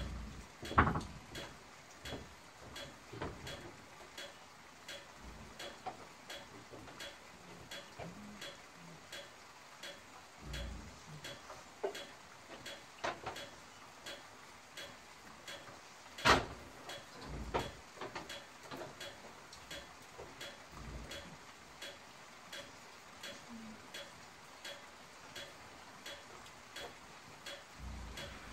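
Steady faint ticking, about two ticks a second, under scattered knocks and low thumps from someone moving about on a wooden plank floor and handling wiring; the loudest knocks come about a second in and midway through.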